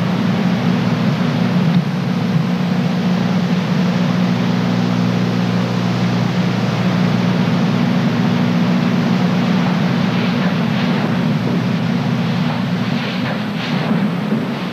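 Steady hiss and low hum from an old videotape's audio track, with no clear event standing out above it.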